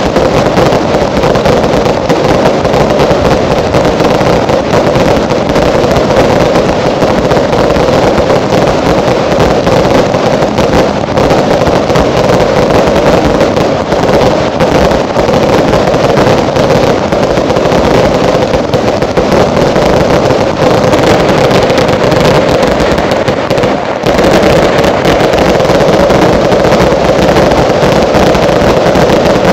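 Consumer fireworks (category 2 cakes and T2 single shots) firing in a dense, unbroken barrage: launches, bursts and crackling follow so closely that they merge into one loud continuous din, briefly easing about three-quarters of the way through.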